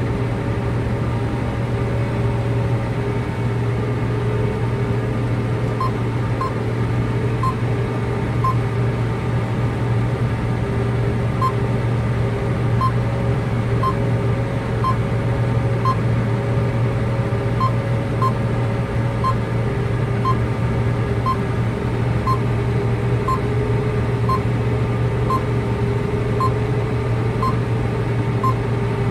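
Steady engine and machinery drone of a John Deere CP690 cotton picker working close ahead, heard from inside a following vehicle's cab. A short high beep repeats about once a second through most of it.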